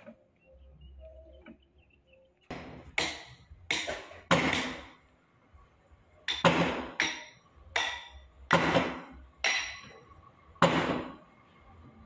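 Heavy steel lifting chains clanking as they are hauled and dropped over a log. About ten sharp, ringing metallic clanks come in two bursts, the first starting a couple of seconds in and the second a little past the middle.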